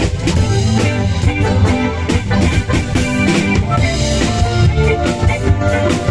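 Cha-cha dance music played loud through a mobile sound system, with a steady drum beat and heavy bass.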